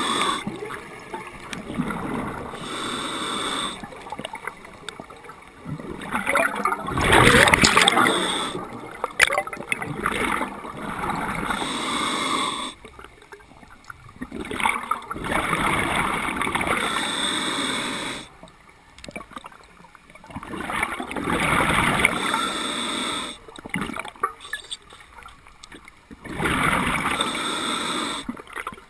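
A scuba diver breathing through a regulator underwater: inhalations hiss and exhalations gurgle out as bubbles. The breaths come one after another every few seconds, with quieter pauses between them.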